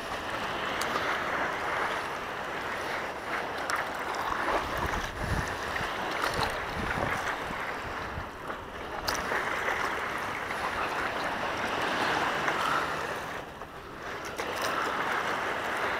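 A steady rush of wind on the microphone and water sloshing around a small board out on calm sea water. It drops away briefly about halfway through and again near the end.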